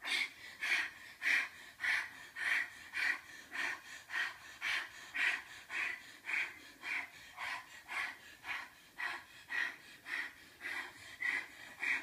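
Two people panting in rapid, even, forced breaths, about two a second: deliberate hyperventilation to make themselves faint.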